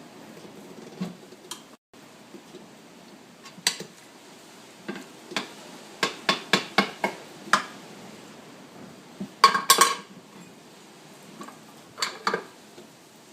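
Screwdrivers clinking and tapping against a scooter wheel rim as a tubeless tyre bead is levered off. The sharp metal clicks come irregularly: a quick run of about six around six seconds in, and the loudest cluster near ten seconds.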